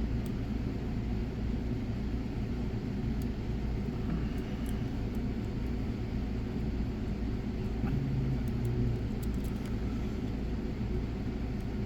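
Steady low background hum, with a few faint, sparse ticks of a lock pick working the pins inside a padlock.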